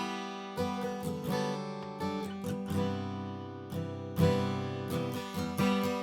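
Martin D-18 Authentic 1937 dreadnought acoustic guitar (mahogany back and sides, Adirondack top, phosphor bronze medium strings) played with a pick: picked chords and single notes ringing out and decaying, with a strong accent about four seconds in.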